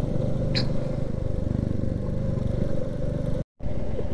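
Royal Enfield Classic 350's single-cylinder engine running steadily as the motorcycle is ridden, heard from the rider's seat, with one brief high chirp under a second in. The sound drops out for an instant near the end.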